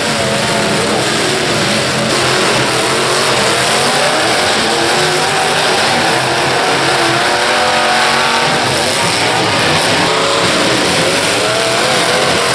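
Several demolition derby cars' engines running and revving together, their pitches rising and falling over a loud, steady wash of noise.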